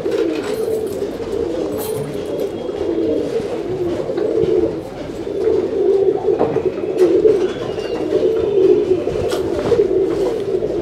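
Many domestic pigeons cooing together, a continuous overlapping warble of low coos.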